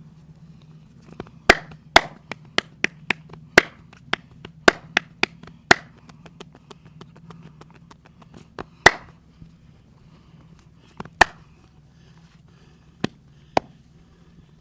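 Hand percussion of a head and back massage: a fast, irregular run of sharp slaps and claps on the body, then a few single loud ones a couple of seconds apart.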